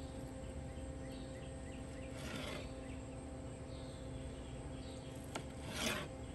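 Knife sawing through a rack of smoked ribs on a wooden cutting board, with two short scraping strokes about two seconds in and near the end, the second louder. Faint bird chirps and a steady hum sit behind.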